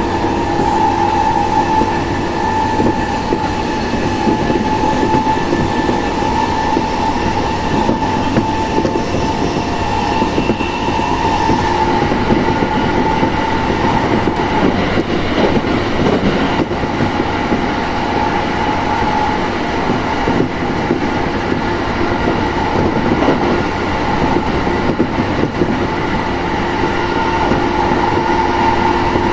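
Interior of a JR Sobu Line Rapid E217-series commuter train running at speed: a continuous rumble of wheels on rail with a steady high hum over it.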